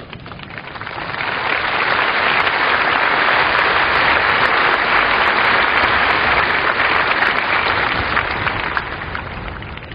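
A very large crowd applauding, swelling up over the first two seconds, holding steady, then dying away near the end.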